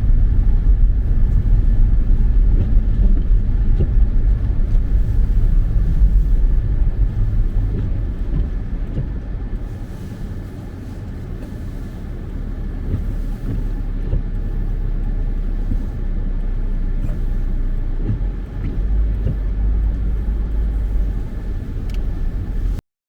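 Car driving along a blizzard-bound highway: a steady low rumble of engine and tyres, easing off about ten seconds in and building again a few seconds later.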